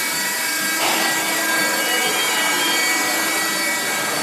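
Hydraulic baling press for clothing and textiles running: a steady mechanical noise with constant whining tones, and a scraping, rubbing noise that grows about a second in.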